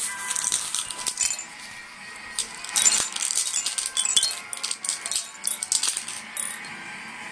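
Cowbells jangling and clanking in an irregular run of strikes, with a faint ringing held between them. The strikes come thickest about three to four seconds in.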